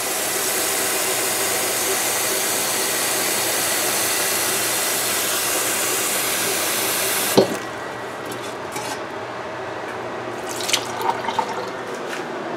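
Kitchen faucet running into a stainless steel saucepan, filling it about halfway with water for boiling. About seven seconds in the tap is shut off with a sharp clunk, and a few light knocks follow as the pot is handled.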